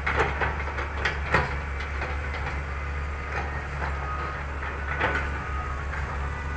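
Fiat-Hitachi 200.3 excavator's diesel engine running steadily under digging load. Several sharp metallic clanks from the bucket and its linkage come near the start, about a second in, and again about five seconds in.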